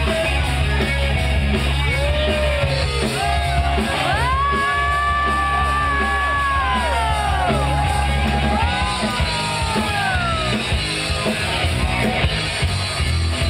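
Loud rock music with a steady bass line and long held notes that bend and slide in pitch.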